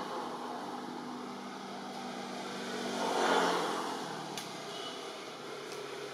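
A motor vehicle passing by. Its engine noise swells to its loudest about halfway through, then fades.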